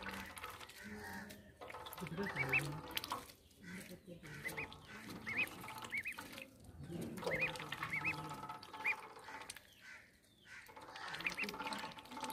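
A young duck peeping in short, high, arched calls, in runs of two or three, as it dabbles its bill in a shallow metal basin of water.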